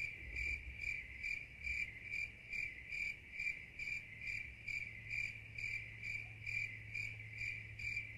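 Cricket chirping at an even pace, about two and a half chirps a second, over a faint steady low hum.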